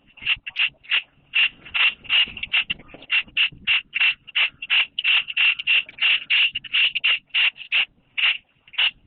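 Rapid back-and-forth scraping or rubbing strokes with a hand tool, about three a second, each stroke a short rasp with a steady high edge to it.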